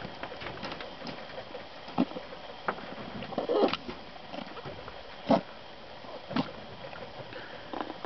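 Doe rabbit shifting and cleaning her newborn kits in a hay nest box: soft rustling of hay with scattered short clicks and scuffs, a few sharper ones standing out, the loudest about five seconds in.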